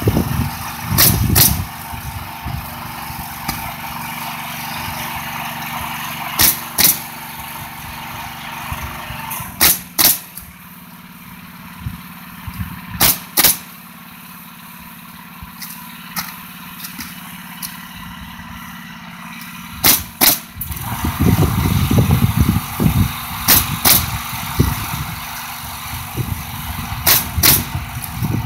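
Pneumatic coil roofing nailer driving 1.5-inch coil nails into ridge cap shingles: seven pairs of sharp shots, two nails per cap, a few seconds between pairs. A steady motor hum runs underneath and gets louder in the last several seconds.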